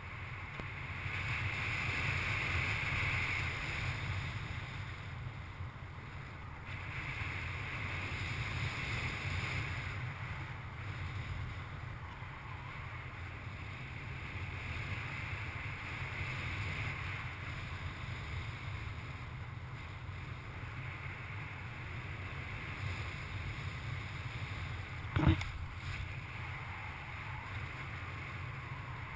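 Airflow rushing over the microphone of a paraglider pilot in flight: a steady wind rumble and hiss that swells and eases every few seconds. Near the end comes a single sharp knock.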